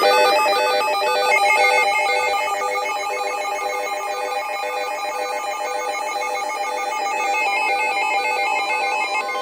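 A bell-like electronic tune like a ringtone: bright synthesized notes, several sounding at once, stepping in a quick repeating pattern.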